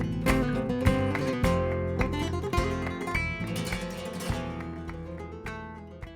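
Background music, fading out steadily toward the end.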